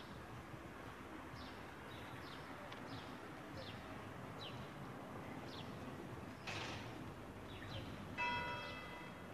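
Faint outdoor town ambience with small birds chirping repeatedly in short high notes. Near the end a single bell strike rings out and fades over about a second.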